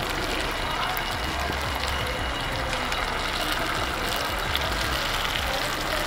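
Egg batter sizzling in hot oil as it is poured into the cups of a cast-iron paniyaram pan on a wood fire: a steady hiss with fine crackling, over a low rumble.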